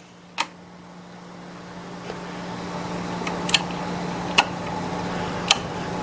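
A wall toggle switch clicks once, about half a second in, as it is flipped to test a switched GFCI receptacle. A steady low hum follows and slowly grows louder, with a few faint ticks.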